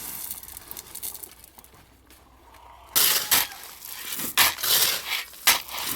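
Wet concrete being poured and worked into column forms: a quiet start, then from about halfway through a run of short, sharp scraping and crunching bursts.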